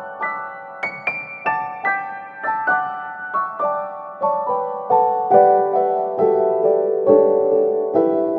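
Piano music: a gentle melody of single struck notes, about three a second, over lower held notes that build up in the second half.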